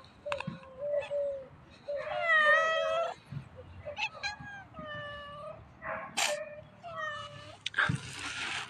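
Stray tabby-and-white cats meowing repeatedly, about half a dozen calls, the longest and loudest about two seconds in, as they beg for food. A sharp click shortly after six seconds and a rustle near the end.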